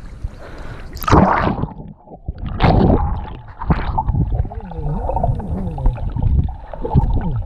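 A splash as a handheld action camera goes under the sea surface about a second in. Then muffled underwater sound follows, with gurgling bubbles and a few more splashy bursts, and wavering muffled tones near the end.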